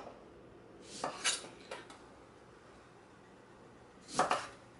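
Kitchen knife cutting through a lime and knocking on a wooden cutting board: a couple of sharp knocks about a second in, a faint one just after, and a louder cluster near the end.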